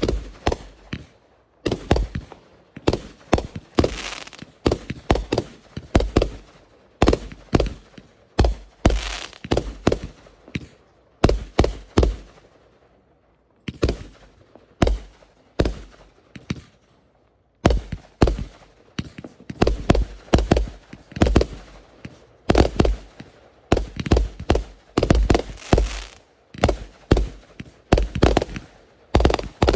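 Fireworks going off in a rapid series of sharp bangs, several a second at times, with two short lulls about halfway through before the barrage resumes.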